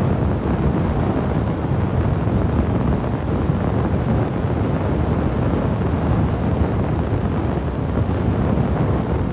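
Steady low rumble of wind buffeting the microphone, even throughout, with no distinct knocks or tool sounds standing out.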